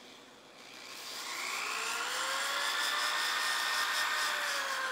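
Power sanding on a wood lathe: a motor whine rising in pitch over about a second and a half, then holding steady, from the drill-driven sanding disc and the lathe running in reverse.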